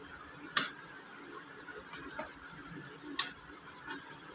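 Push-button switches on a Panasonic mixer grinder being pressed: five sharp clicks at uneven spacing, the first the loudest. No motor is heard running.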